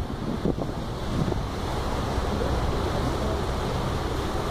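Wind buffeting the microphone aboard a moving lake boat, over a steady low rumble of the boat under way and the rush of water. The gusts hit hardest in the first second or so, then settle into a steady blow.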